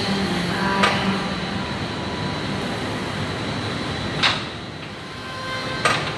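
Steady gym room noise with three sharp metallic clanks from weight equipment: one about a second in, one past four seconds, and one near the end.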